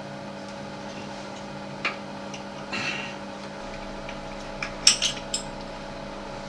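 A few light plastic-and-metal clicks and clinks from the hinge covers and fittings of a Vitra soft-close toilet seat being lifted off and handled, the loudest cluster about five seconds in, over the steady hum of a bathroom extractor fan.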